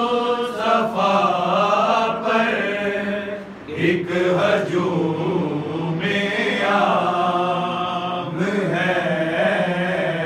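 A noha, a Shia mourning lament, chanted by voice in long, held melodic lines, with a short break about three and a half seconds in.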